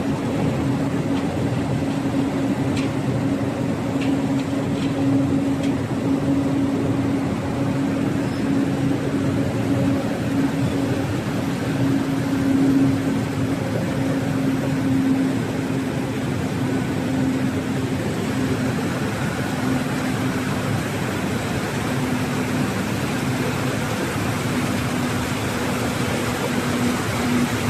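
Glass tempering furnace line running: a steady mechanical hum with a droning tone, and a few faint clicks about three to five seconds in.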